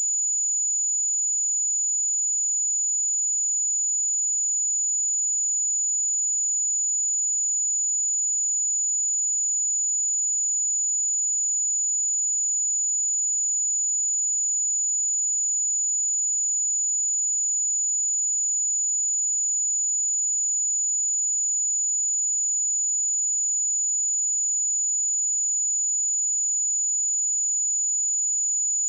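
A pure 6921 Hz sine-wave test tone, one steady high-pitched note at constant loudness, for checking speakers or headphones.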